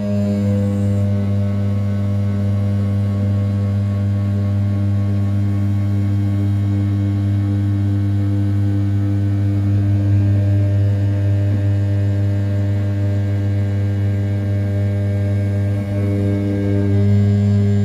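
500 W brushless spindle on an RZ420 desktop CNC mill turning at 6000 rpm while an end mill rough-cuts the outer profile of an A7075 aluminium block. It makes a steady, loud, low-pitched drone with a brief dip about 16 seconds in.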